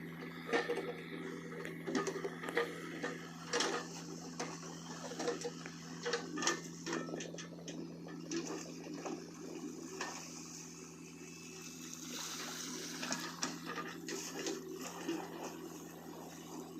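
XCMG mini excavator's engine running at a steady hum, with irregular knocks, clicks and scrapes as the bucket digs into soil.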